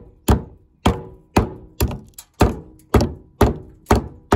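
A ball peen hammer strikes the plastic tank of an old, discoloured car radiator in a steady series of hard blows, about two a second, each with a short ring. The aged plastic holds up without shattering, so it is not brittle.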